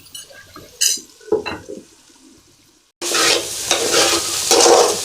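A couple of light knocks, then about three seconds in, raw banana pieces suddenly sizzling in hot oil as a spatula stirs and scrapes them around the pan in uneven strokes.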